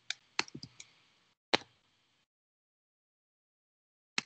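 Computer mouse clicking: a quick run of sharp clicks over the first second and a half, the loudest about a second and a half in, then two more clicks near the end.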